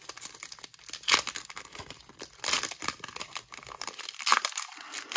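Foil Pokémon booster pack wrapper crinkling and tearing as it is ripped open, in irregular crackles with a few louder rips.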